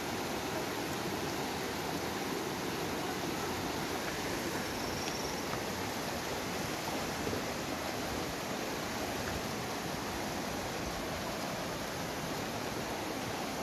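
Shallow, rocky mountain river rushing over stones in white-water rapids: a steady, even wash of running water.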